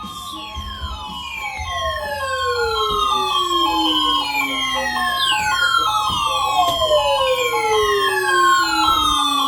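Emergency alert signal ahead of a flash flood warning: a pulsing alert tone near 1 kHz under repeated, overlapping siren-like falling sweeps, each starting high and gliding down, growing louder over the first few seconds.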